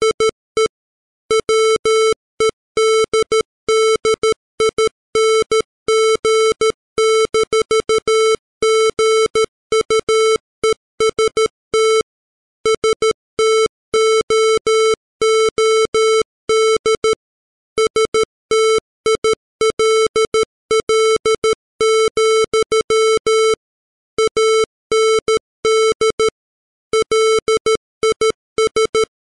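Computer-generated Morse code: a single 440 Hz square-wave tone keyed on and off in dots and dashes at 13 words per minute, with longer pauses between words.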